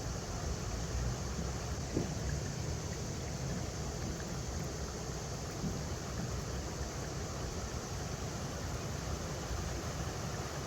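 River water running over rocks, a steady rushing with a low rumble beneath it, and a brief soft knock about two seconds in.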